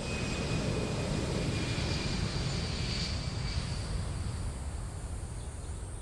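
Jet airliner flying overhead: a steady engine rumble with a faint high whine, fading in the last few seconds as it passes.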